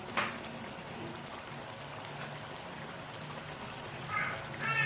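Beef karahi of meat, tomatoes and onions simmering over a low flame: a soft, steady bubbling, with one short knock just after the start.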